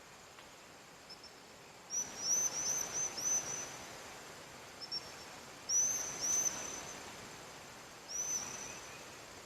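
A small bird chirping in quick runs of short high notes, in three bouts about two, six and eight seconds in, over a faint steady outdoor hiss.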